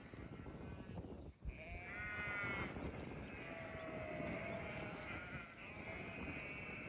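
A flock of sheep bleating, with calls about one and a half seconds in and again from about three and a half seconds in.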